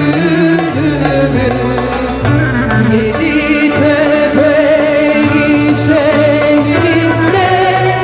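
Mixed choir of men and women singing a Turkish song, with a few voices amplified by microphones in front.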